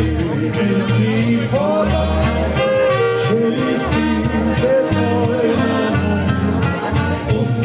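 Live band music with singing, a steady bass line under it.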